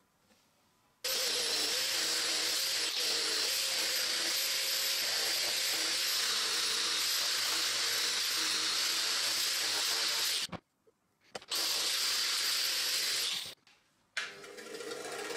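Angle grinder with an abrasive disc running against a rusty steel knife blade, starting suddenly about a second in and running steadily with a constant whine. It cuts off about ten seconds in, runs again briefly, and near the end a bench grinder's motor hums as it starts up.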